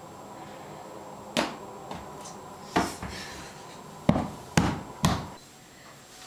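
A series of five sharp thumps, spaced out at first, then three in quick succession about half a second apart.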